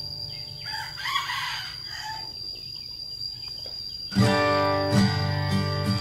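Strummed acoustic guitar background music, which gets louder about four seconds in. About a second in, a bird calls once for about a second and a half over the quieter music.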